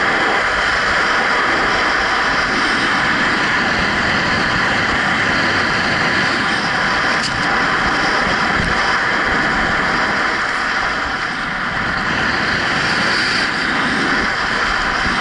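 Steady rush of wind over an action camera's microphone while skiing downhill at speed, mixed with skis sliding on packed snow.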